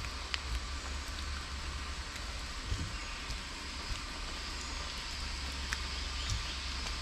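Steady outdoor hiss with low rumbling wind on the microphone and a few faint clicks.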